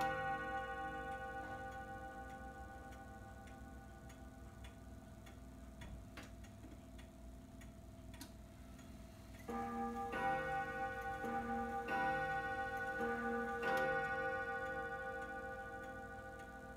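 Antique H.A.U. bim-bam wall clock striking on its two gongs, with the pendulum ticking underneath. One bim-bam pair rings out at the start and slowly dies away. From about nine and a half seconds in, three bim-bam pairs follow, striking three o'clock.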